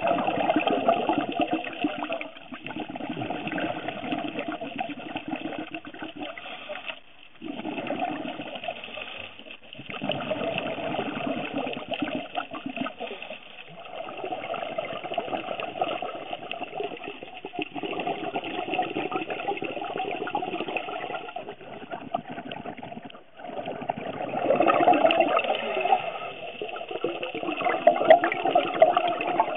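Underwater water noise with bubbling, as picked up by a camera's microphone while diving. It breaks off sharply several times and starts again.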